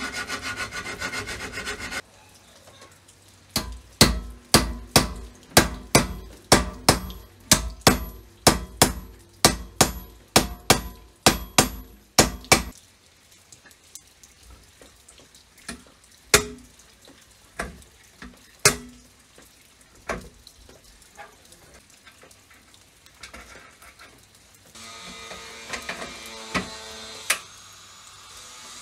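A short stretch of rasping rubbing like filing, then a run of about twenty hammer blows at a steady beat of about two a second that stops abruptly. After that come scattered clicks and taps of tools being handled, and a little more scraping near the end.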